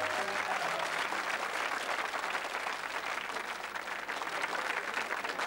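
An audience applauding: steady, dense clapping.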